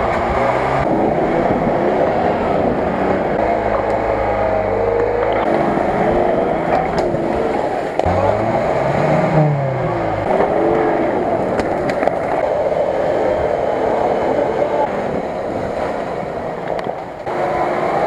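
Off-road 4x4 engines, mostly a UAZ-469's, revving hard and rising and falling in pitch as the wheels churn through deep mud, in a run of short clips that cut abruptly from one to the next.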